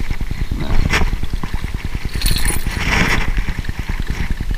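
A hooked bass splashing at the water's surface as it is reeled to the boat and lifted out: a short splash about a second in, then a longer splashing burst in the middle. Underneath runs a steady, fast, low fluttering rumble.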